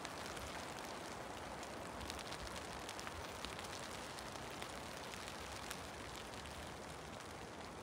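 Light rain falling steadily in woodland: an even hiss with faint scattered ticks of drops.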